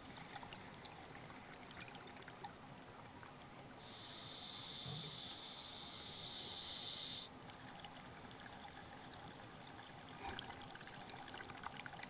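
Scuba diver breathing through an open-circuit regulator, picked up underwater by the camera: one long hissing breath begins about four seconds in and lasts about three seconds. Faint water noise and small bubble ticks fill the rest.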